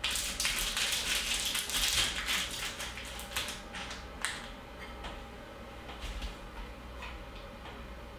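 Plastic crinkling and rustling as parts are handled, for about three seconds. A few scattered light clicks and taps follow.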